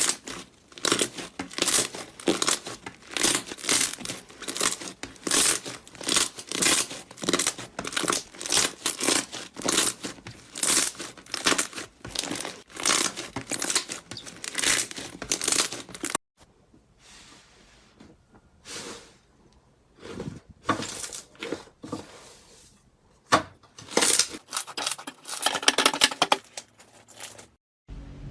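Slime being squeezed and worked by hand: a fast run of short squishing, popping strokes, about three a second. A cut about two-thirds through leaves sparser, quieter handling sounds, then a few louder strokes near the end.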